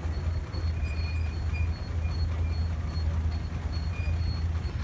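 Heavy machinery running steadily with a deep low hum, and faint short high-pitched chirps repeating over it.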